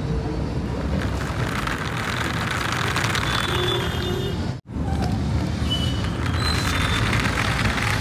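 Small DC gear motor of a converted plastic toy car whirring while its hard plastic wheels rattle over rough pavement as it drives. The sound drops out for a split second about four and a half seconds in.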